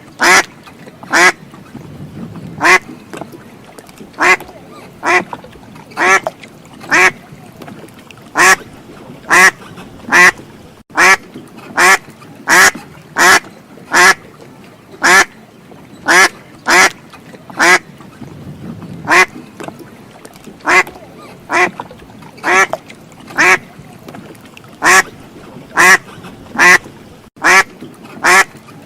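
Duck quacking repeatedly: a steady series of short, loud quacks, a little more than one a second.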